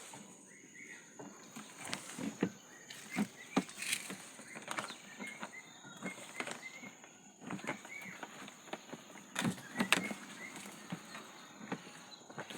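Irregular clicks and knocks of a small washing machine's plastic casing and parts being handled and fitted back together as it is closed up.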